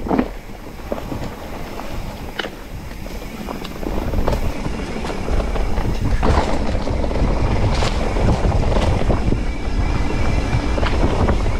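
Wind buffeting the microphone during a mountain bike ride, growing louder about four seconds in, with scattered knocks and rattles from the bike on rough trail.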